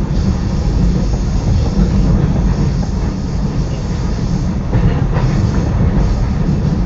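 Electric suburban train running at speed, heard from inside the carriage: a steady, loud rumble of wheels on rails.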